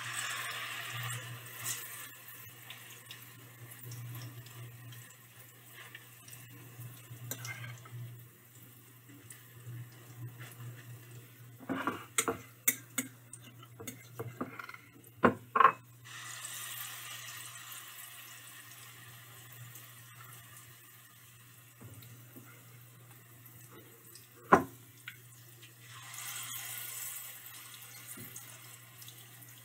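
Spoonfuls of spiced plantain mixture going into hot frying oil in a pan, sizzling in surges that die back between additions. A metal spoon clinks sharply against the pan several times in the middle and once, loudest of all, later on.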